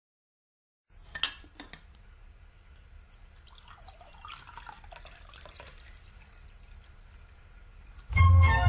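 Tea being poured from a china teapot into a porcelain teacup, a faint trickling after a sharp clink of china about a second in. Loud music starts near the end.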